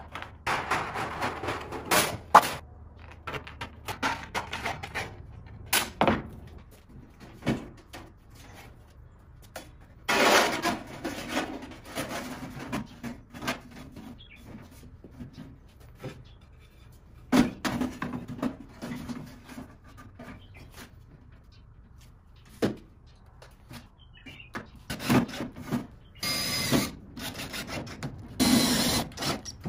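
Aviation tin snips cutting galvanized steel sheet in a series of sharp snips, then the thin sheet metal rattling and rubbing as it is handled. Near the end, a cordless drill runs in two short bursts, boring through the galvanized sheet.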